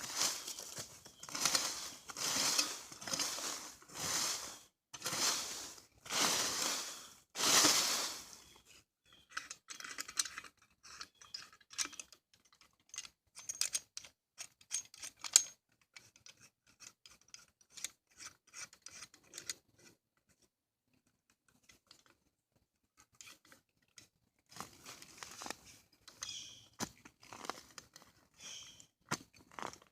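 Folding tri-fold shovel digging into soil. Its blade strikes and scrapes into the ground about once a second, then the strokes give way to scattered, softer crunching and scraping of dirt, with a short pause in the middle.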